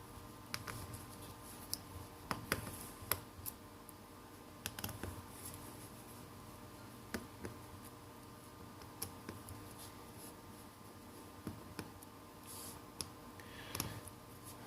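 Small screwdriver taking out the back screws of a Samsung Galaxy Note 3: faint, irregular clicks and taps of the bit on the screw heads and of small screws being set down.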